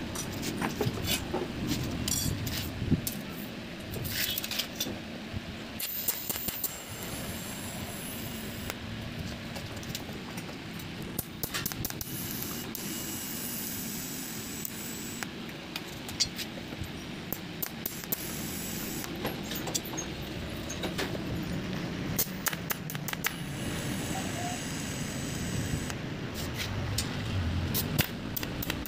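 TIG welding of a stainless steel tube frame: the arc hisses in stretches that start and stop, with light metallic clicks and clinks of the tubes, filler rod and torch being handled.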